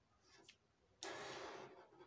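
A pen drawing a short stroke on brown pattern paper against a ruler: one dry scratch that starts suddenly about a second in and fades within a second, with a few faint taps before it.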